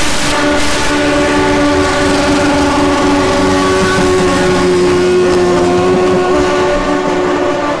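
A sport motorcycle engine held at steady high revs during a burnout, its rear tyre spinning against the asphalt. The engine note stays at an even pitch throughout.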